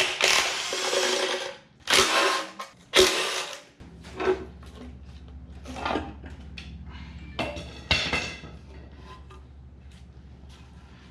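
Handheld power tool running bolts out of the engine's front cover in three short runs, the first about a second and a half long, then a few scattered metal clinks and knocks as parts are handled.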